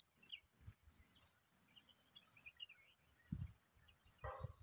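Faint, scattered chirps from small birds, a few short high calls and quick pitch glides, over near silence. A couple of soft low thumps come near the end.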